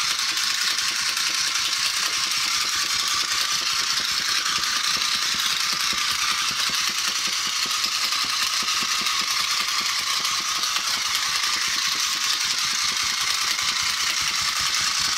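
Battery-operated flying bald eagle toy running: its small motor and repaired gear train clatter steadily as the wings flap.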